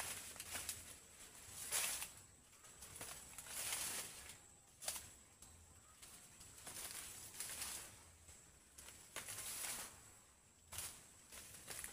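Maize plants being bent over by hand: dry leaves rustling and stalks snapping in short bursts every second or two, with one sharp crack about five seconds in.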